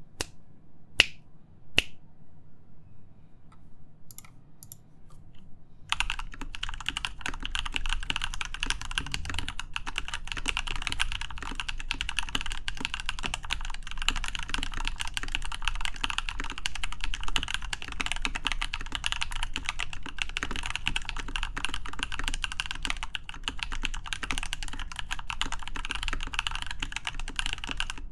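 Typing on a Leopold FC660M mechanical keyboard with lubed Lumia switches on a steel plate and PBT doubleshot keycaps. A few separate keystrokes come first, two of them sharp and loud, then from about six seconds in a steady stream of rapid keystrokes.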